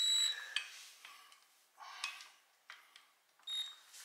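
Cordless impact wrench run in a few short bursts, its motor giving a high steady whine, as it backs out the bolts that hold the axle's bearing retainer behind the flange.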